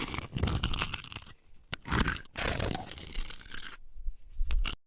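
Makeup being wiped off: rough, tearing, scraping rubbing strokes in bursts with short pauses, and a sharp crackle near the end.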